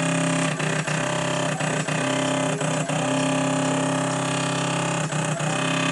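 Stepper motors of a DIY GRBL CNC laser engraver whining steadily as the laser head scans back and forth, with a brief click every so often. They are this noisy because they are driven in single-step (full-step) mode instead of half-step mode.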